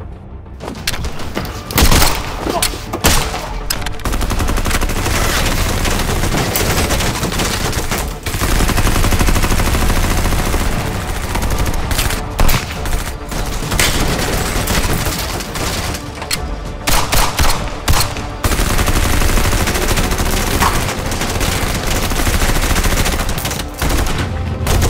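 Pistol gunfire: long runs of rapid shots, with a few sharper single shots standing out.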